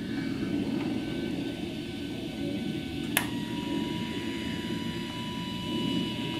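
TIG welding arc on 1/8-inch mild steel square tubing at 125 amps, striking with one sharp click about three seconds in and then burning with a steady whine over a low steady hum, making a fusion tack with no filler rod, held until the corner puddles.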